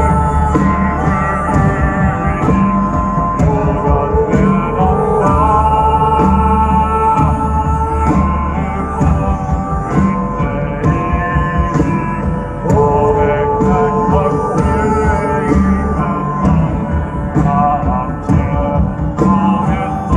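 Live concert music with bagpipes playing a melody over steady held tones, backed by a regular drum beat, loud through the stage PA.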